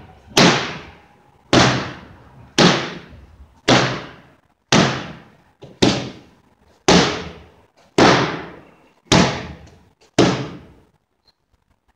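About ten loud, sharp slams, evenly spaced about a second apart, each echoing off the walls of a stone archway passage. They stop shortly before the end.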